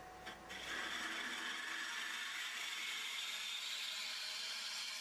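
Gouge cutting into the inside of a spinning monkey pod bowl on a wood lathe: a steady hiss of shavings coming off the wood, starting about half a second in.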